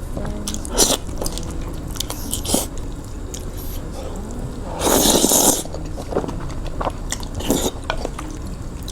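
A person eating up close: biting and chewing with scattered short clicks, and one loud, noisy half-second burst about five seconds in.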